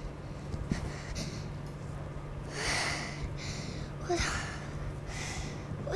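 A boy breathing hard and gasping, with three or four noisy breaths from about two and a half seconds in, over a low steady hum.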